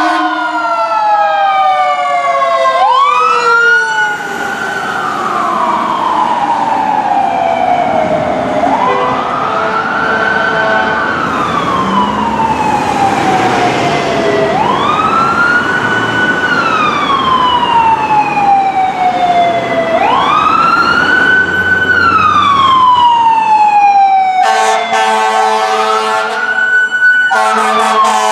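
Fire engine siren winding up quickly, holding and slowly coasting down, over and over about every five to six seconds. Near the end a fire truck air horn blasts, breaks briefly and sounds again.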